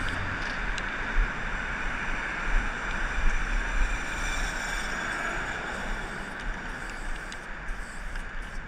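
Aerosol spray-paint can hissing steadily as paint is sprayed onto a concrete pillar, over a low rumble of road traffic.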